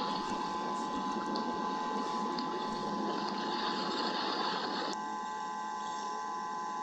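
Steady hiss of rain falling on an eagle nest, picked up by the nest camera's microphone along with a constant electronic hum. The hiss eases slightly about five seconds in.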